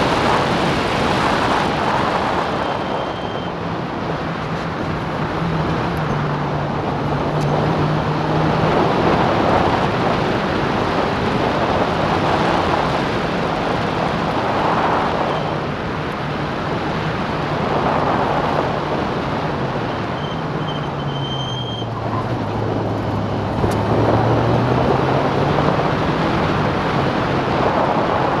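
In-car sound of a Classic Clubmans racing car at speed: heavy wind rush over the camera with the engine note underneath. The engine note dips as the car slows about twenty seconds in, then climbs again as it accelerates.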